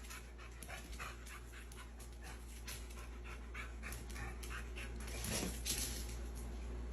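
Dog panting steadily, about three quick breaths a second, with a slightly louder stretch about five seconds in.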